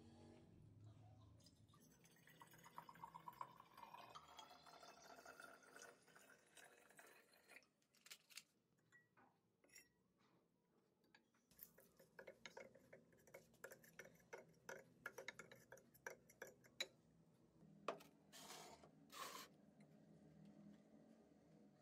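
Quiet clinks and taps of small metal and glass parts being handled. Early on, for a few seconds, liquid is poured into a container, its pitch rising as it fills.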